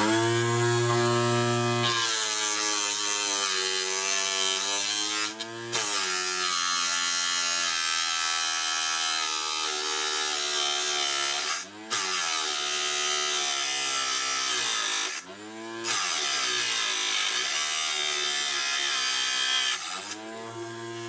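Homemade 3D-printed cut-off saw with an 895 DC motor spinning an abrasive disc. The motor spins up with a steady hum, then the disc grinds through a 6 mm steel threaded rod with a high abrasive hiss, and the motor's pitch sinks under the load. The grinding drops out briefly three times and stops near the end, leaving the motor running free.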